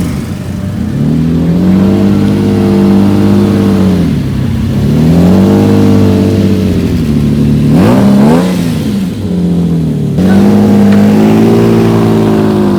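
A car engine being revved repeatedly. It rises in pitch and holds there for a couple of seconds, three times over, with one short, sharp blip of the throttle between the second and third revs.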